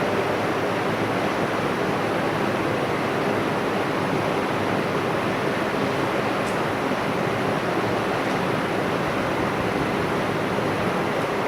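External vacuum pump for an OCA vacuum laminating machine running continuously, an even rushing hiss.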